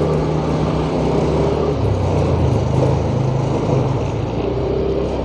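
Yamaha scooter engine running steadily while cruising at low speed, with wind and road noise on a wind-furred external mic. The engine note shifts slightly about two seconds in.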